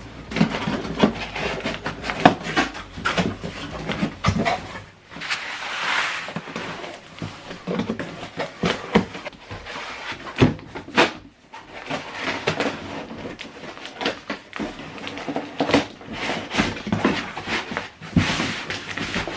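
Packaging being handled while a soundbar and subwoofer are unboxed: rustling of cardboard, foam or plastic wrap, with many short knocks and scrapes.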